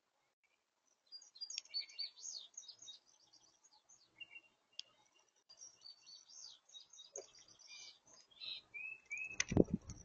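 Small songbirds chirping and twittering in quick, overlapping high calls, with a couple of loud low thumps near the end.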